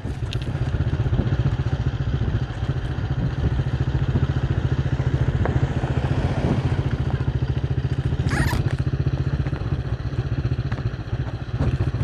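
Motorcycle engine running steadily with a rapid, even pulse while riding along a rough road. There is a brief hiss about eight seconds in.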